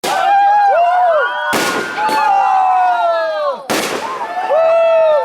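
Fireworks going off: four sharp bangs over about four seconds, two of them close together, with whistling tones sliding down in pitch between the bursts.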